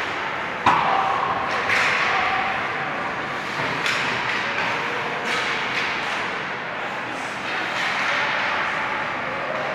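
Ice hockey play at a rink: several sharp knocks of stick and puck, the loudest about a second in with a brief ring after it, over a steady noisy rink background.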